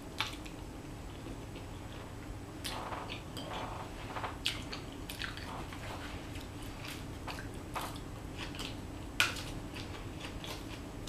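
Close-up mouth sounds of a person eating fettuccine alfredo: slurping up noodles and chewing, with scattered short clicks, the sharpest about nine seconds in.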